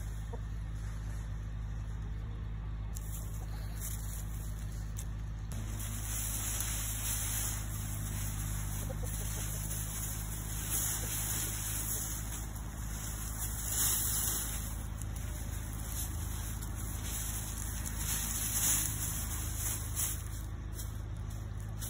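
A steady low mechanical hum, like an engine or motor running, with a few faint brief rustles.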